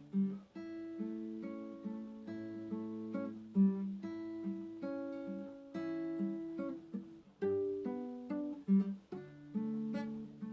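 Solo acoustic guitar playing a slow, gentle piece of plucked notes and chords that ring on.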